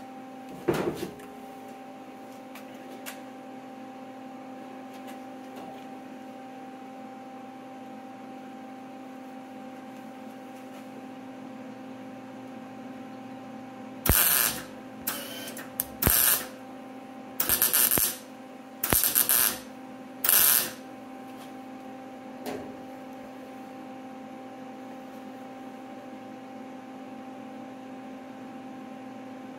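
Wire-feed MIG welder laying weld in short trigger bursts, each well under a second, over a steady electrical hum. There is one burst about a second in, then a long stretch of hum only, then six quick bursts about halfway through. The welds build up metal on a worn shift lever.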